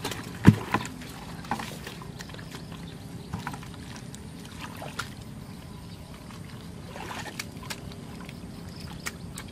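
Hands scooping and splashing through muddy water and wet mud, with a sharp knock about half a second in and scattered small slaps and clicks after it.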